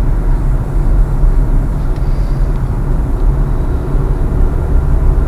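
Steady low rumble of a car's engine and road noise heard from inside the moving car's cabin.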